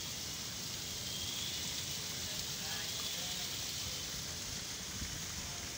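Steady splashing of water running down an artificial rock waterfall into a garden pool.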